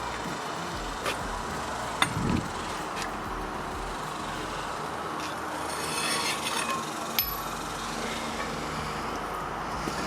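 Hand tools working on a truck's front brake hub: a few sharp metallic clicks and a dull knock, with a brief rasping, scraping stretch around the middle, over a steady background hiss.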